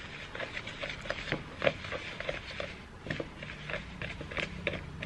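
Hand whisk stirring brownie batter in a mixing bowl: irregular light clicks and scrapes of the wires against the bowl's side as melted chocolate is stirred into the flour. A faint low hum comes in about halfway through.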